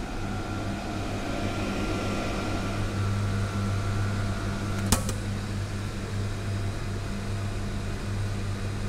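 Hot-meal vending machine humming steadily with a faint high whine, then a single sharp click about five seconds in as its collection flap snaps shut behind the tray being pulled out; the whine stops at the click.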